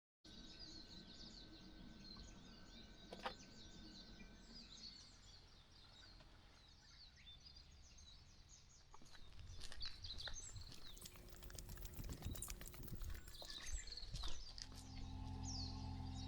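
Birds chirping faintly outdoors, with scattered light clicks and knocks from about nine seconds in and a low steady hum starting near the end.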